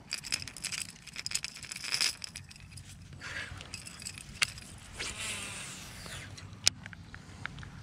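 Lure and baitcasting reel being handled, then cast: small clicks and rattles from the treble-hooked topwater bait and the reel, then the reel spool whirring as line pays out during the cast, and a single sharp click near the end.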